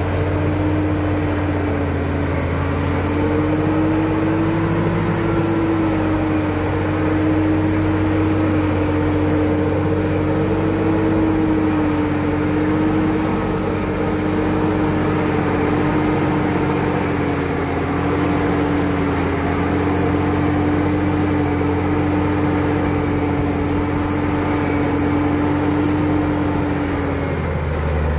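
Caterpillar D7 crawler bulldozer's diesel engine running steadily as the machine pushes a load of dirt with its blade. It is a constant drone with a strong tone that wavers a little in pitch.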